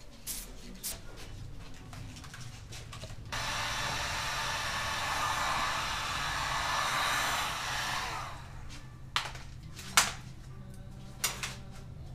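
A handheld electric heat gun blowing hot air on freshly sprayed paint, a steady rushing blow lasting about five seconds that starts suddenly and dies away. Light clicks come before it, and a few sharp knocks follow near the end.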